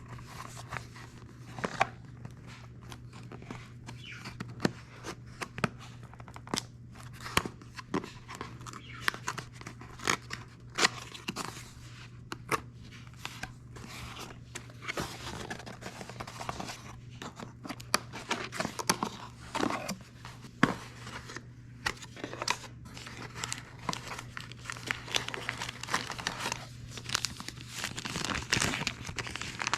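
Packaging being opened and handled: tearing and crinkling of wrapping with many scattered clicks and knocks, busier in the second half, over a steady low hum.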